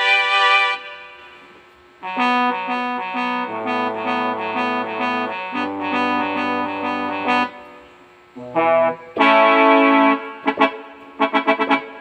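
Yamaha PSR-E333 portable keyboard being played. A held chord fades out, then chords repeat evenly over low sustained bass notes. After a short gap come two held chords and a run of short, detached notes near the end.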